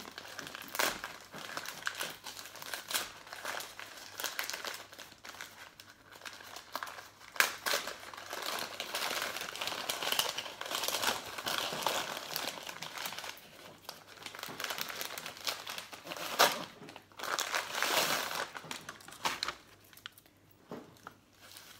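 Gift wrapping paper crinkling and rustling as a small present is unwrapped by hand: irregular crackling with a few sharper, louder crackles scattered through it.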